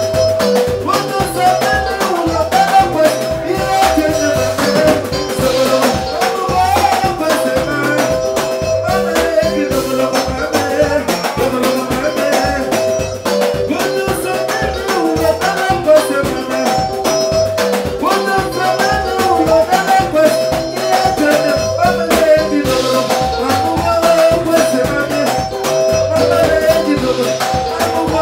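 Live soukous band music: repeating melodic lines over bass and a steady dance beat.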